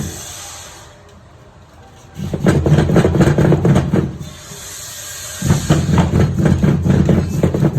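Swaraj 855 tractor's diesel engine running with a rapid, even knock. It dies away twice, about 2 s and 1 s at a time, and comes back abruptly each time.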